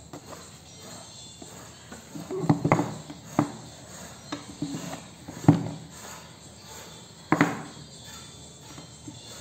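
Samsung Galaxy M32's cardboard retail box being handled and opened: several sharp taps and knocks, loudest about five and a half seconds in, with scraping and rustling between them as the lid comes off.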